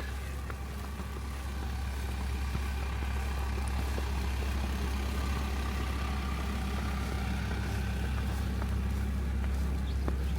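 Engine of a stopped snow-clearing vehicle idling with a steady low hum.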